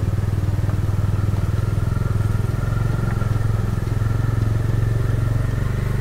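Bajaj Dominar 400's single-cylinder engine running steadily at low road speed, a low even thrum of firing pulses, heard from on the bike.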